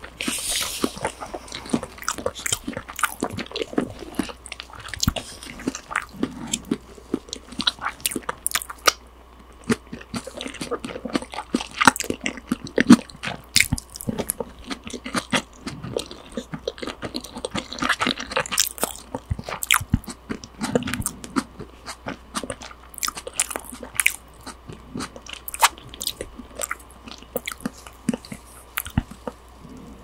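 Close-up eating sounds of a person chewing and biting raw salmon and tuna sashimi with rice, heard through a binaural microphone: irregular sharp wet mouth clicks several times a second.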